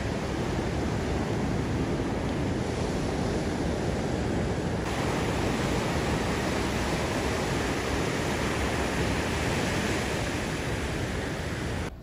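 Ocean surf on a rocky sand beach: a steady rush of waves breaking and foam washing up the shore. It changes slightly about five seconds in and cuts off suddenly near the end.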